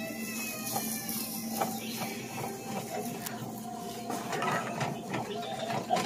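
Kitchen background sound: a steady low hum with scattered light clicks and clatter, and faint voices in the background.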